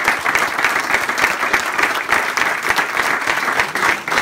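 A small audience applauding, a dense and steady patter of many hands clapping.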